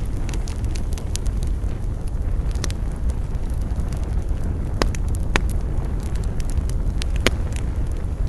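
Wood fire burning with a steady low rumble and scattered crackles and sharp pops, a few louder snaps about five and seven seconds in.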